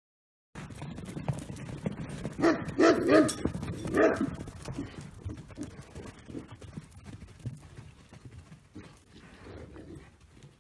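A dog barking four times in quick succession, about two and a half to four seconds in. Under it, horses' hooves thud on soft sand as they move about.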